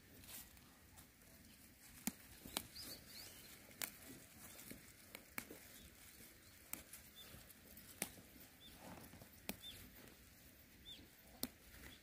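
Sparse, sharp little snaps as tender aster (ssukbujaengi) stems are pinched off by hand, about one every second or two, with a few faint bird chirps in the quiet behind.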